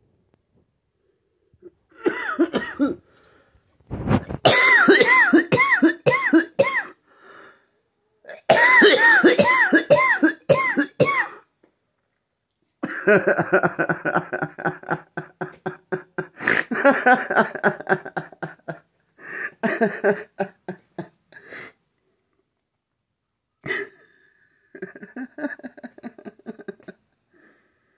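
A person coughing in several fits of quick, repeated coughs, with short silent pauses between the fits.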